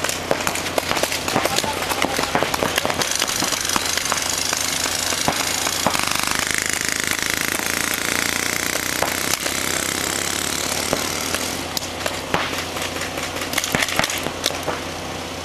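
Reball markers firing during play: a run of sharp, irregular pops and clicks, with a steady hiss for several seconds in the middle.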